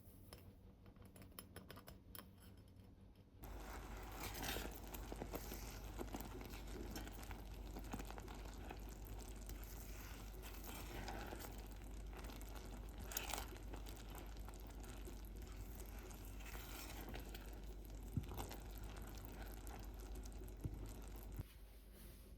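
Rustling and crinkling handling noise, like packaging or paper being handled, over a steady low hum. It starts suddenly a few seconds in after faint clicking, has a couple of sharp clicks later on, and stops abruptly shortly before the end.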